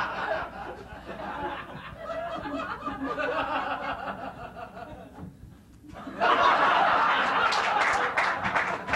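Theatre audience laughing. The laughter dips briefly about five seconds in, then comes back louder.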